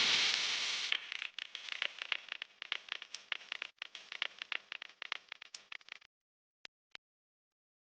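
A loud hiss-like noise for about a second, then a dense run of sharp crackling clicks that thins out and stops about six seconds in, followed by two lone clicks.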